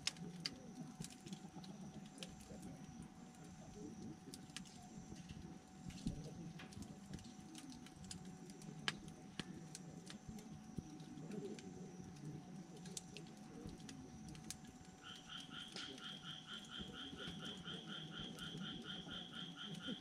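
Wood fire crackling with scattered small pops, a few of them sharper, while frogs call. About three-quarters of the way in, one frog starts a rapid pulsed call of about five pulses a second.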